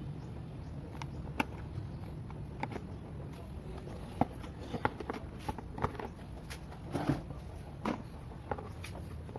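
Irregular clicks and light knocks of plastic vacuum-cleaner parts being handled and fitted back together, over a steady low background hum.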